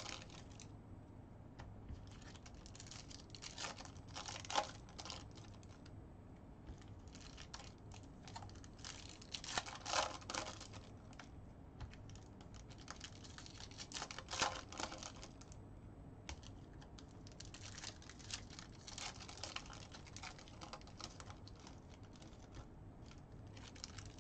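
Foil trading-card pack wrappers crinkling and tearing open, with cards clicking and sliding against each other as they are flipped through by hand. A string of small irregular clicks runs throughout, with louder crackles about 4½, 10 and 14½ seconds in.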